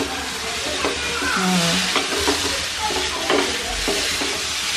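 A wooden spatula stirring and scraping noodles in a nonstick frying pan, with the food sizzling steadily in hot oil. Several sharp knocks and scrapes of the spatula against the pan cut through the sizzle.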